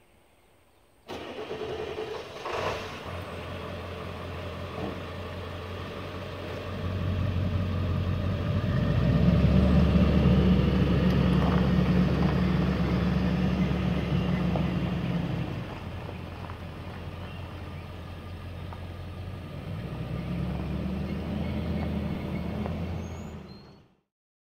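Engine of a Vermeer compact walk-behind machine starting abruptly about a second in and running, speeding up for several seconds in the middle, settling back, speeding up again, then cutting off suddenly near the end.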